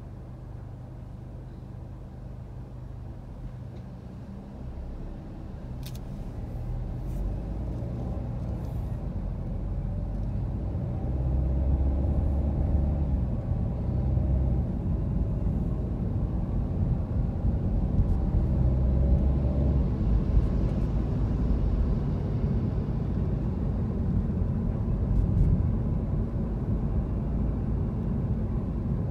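Car driving: a steady low rumble of engine and tyres that grows louder from about four to eleven seconds in as the car pulls away from a stop and gathers speed, then holds steady.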